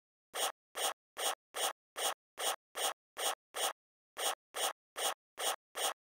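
Marker scratching across a drawing surface in a quick, even series of short strokes, about two and a half a second, each one a straight line being ruled. A short pause comes a little past halfway, as the strokes switch from vertical to horizontal lines, then they resume.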